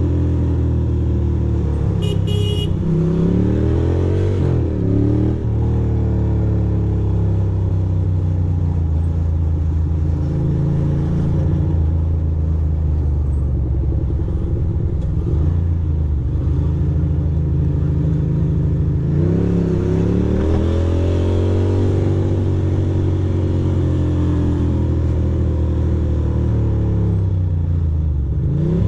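2006 Ducati Monster 620's air-cooled L-twin engine running under way, heard from the rider's seat, its revs rising and falling a few times as the throttle is worked and gears change, with city traffic around it. A brief high beep about two seconds in.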